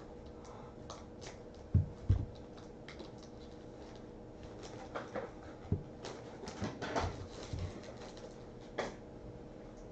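Hands handling a baseball-card rack pack's plastic wrapper and the cards' plastic sleeves, with short crinkling rustles. Two dull thumps on the desk about two seconds in are the loudest sounds, and a few lighter knocks follow later.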